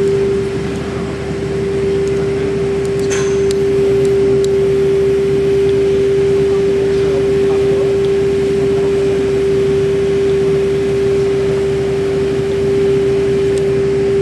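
Small electric motor of a model tower crane running with a steady, even-pitched whine over a low hum, as the crane turns; a few light clicks about three seconds in.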